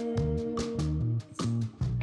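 Instrumental music led by a plucked guitar over a bass line, dropping out briefly twice in the second half.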